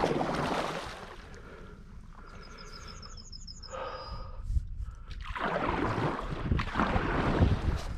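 Paddling a stand-up paddleboard: a rushing noise of water and wind, loud for about the first second and again for the last three seconds or so.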